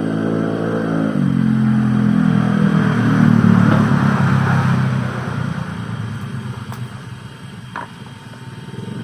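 Engine of a passing motor vehicle, growing louder to a peak about three seconds in, then fading away.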